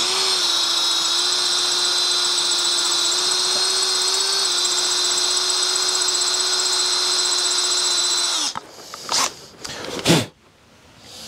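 Cordless drill running steadily under load, drilling into a small steel bolt head on a motorcycle handlebar clamp, for about eight and a half seconds before it stops. A few short knocks follow, the last one sharp.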